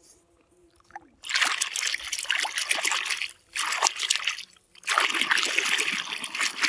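Water splashing and running over a muddy toy vehicle as it is washed, in three spells: a long one starting about a second in, a short one in the middle, and another long one near the end.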